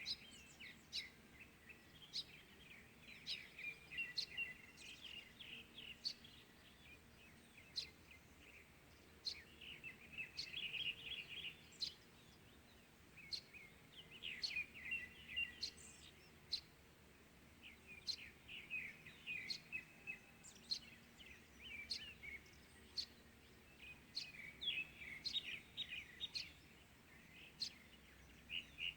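Wild birds singing in the early morning, a busy run of short chirps and quick trilled phrases coming every few seconds, with a faint steady low hum beneath.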